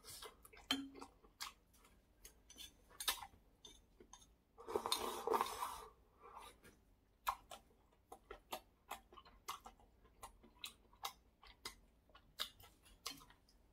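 Close-up eating sounds: chewing fish cake with many small wet clicks and smacks, and one slurp of malatang broth from a small bowl about five seconds in, lasting a little over a second.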